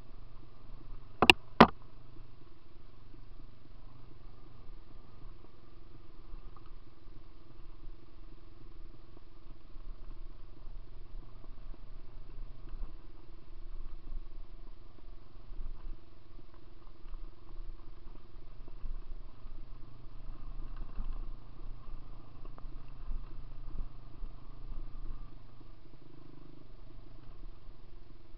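Dirt bike engine running steadily while riding along a trail. Two sharp clicks, close together, about a second and a half in.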